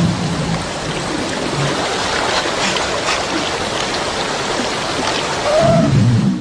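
Steady, even water noise, like rain or a stream, with a louder low rumble and a brief tone in the last second.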